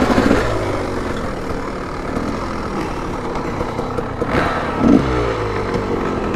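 Dirt bike engine running while riding, its pitch rising and falling with the throttle, with a louder rev about five seconds in.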